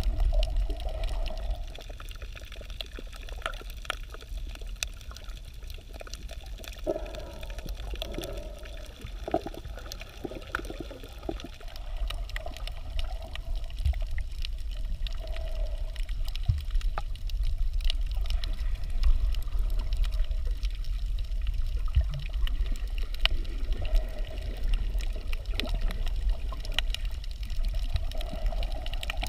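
Underwater sound picked up by a camera beneath the surface: a steady low rumble of moving water, with many scattered sharp clicks and a hollow wash that swells and fades at times.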